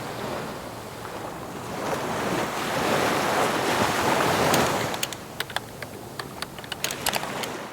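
Ocean surf: a wave swells and washes in, loudest in the middle, then eases off, with scattered sharp ticks in the last few seconds.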